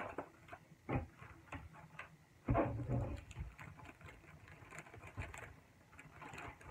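Plastic project bags crinkling and rustling as they are handled, with irregular small clicks and a louder bout of rustling about two and a half seconds in.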